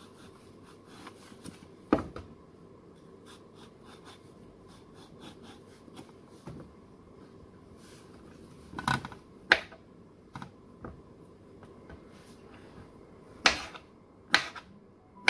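Knife cutting ridged gourd (luffa) on a cutting board: a few irregular sharp taps of the blade on the board, with soft scraping and handling noise between them.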